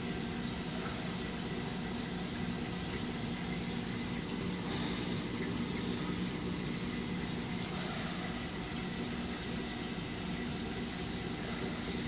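Steady rush of running water over a low, even hum, typical of a saltwater aquarium's pumps and water circulation.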